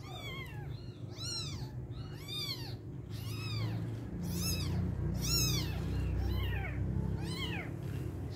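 Newborn kitten mewing over and over, short high-pitched cries about one a second, each rising and then falling in pitch, over a low hum that swells in the middle.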